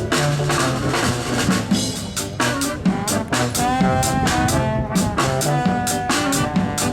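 Instrumental music with a steady drum beat and held melody notes.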